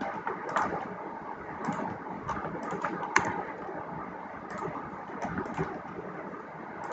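Computer keyboard keys clicking irregularly, about a dozen short keystrokes with the sharpest one about three seconds in, as code is cut and pasted with keyboard shortcuts. There is a steady background hiss underneath.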